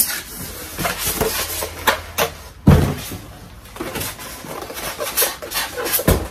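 Rustling and scraping of iMac packaging (protective sleeve, cardboard and foam inserts) as the computer is lifted out of its box, with a heavy thump about two and a half seconds in and another near the end.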